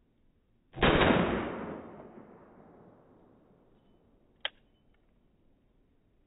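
A single Walther P22Q .22 LR pistol shot about a second in, slowed down so that it dies away over about two seconds. A short, sharp click follows about three and a half seconds later.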